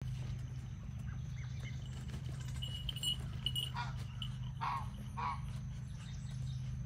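Three short honking calls, typical of a domestic goose, a little past the middle, over a steady low hum. A few faint chirps come just before them.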